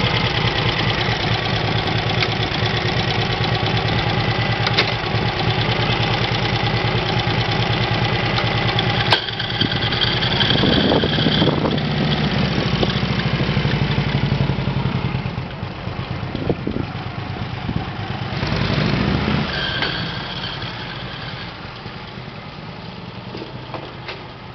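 Vintage V-twin motorcycle engine idling steadily, then a sharp clunk about nine seconds in, followed by revs as the bike pulls away. The engine sound fades as the motorcycle rides off down the street.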